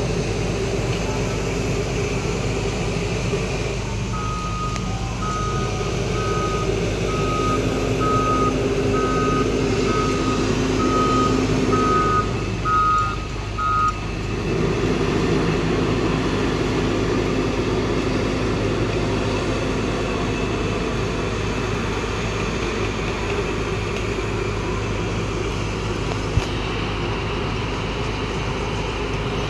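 A heavy construction vehicle's engine runs steadily while its reversing alarm beeps at an even pace for about ten seconds in the first half, the sign that the vehicle is backing up.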